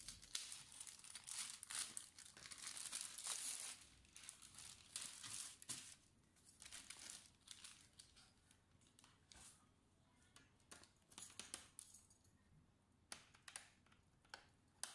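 Plastic laptop wrapping crinkling and rustling as it is handled and pulled away, in dense bursts for about the first six seconds, then lighter and more scattered. A few sharp clicks come near the end.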